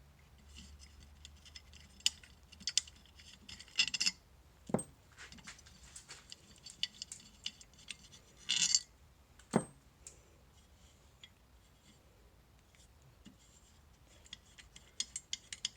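Scattered metallic clicks and clinks of hand tools and alternator parts being handled while the alternator is taken apart, with a few short runs of quick clicks and a brief scrape about halfway through.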